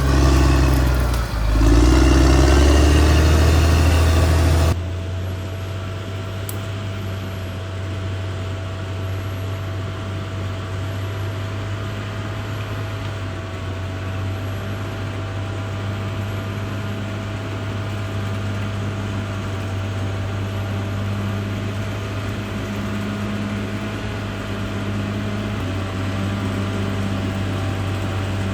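Caterpillar D6R XL bulldozer's diesel engine working hard, its pitch rising and falling with a brief dip about a second in. About five seconds in it drops abruptly to a quieter, steady engine hum with a faint steady whine over it.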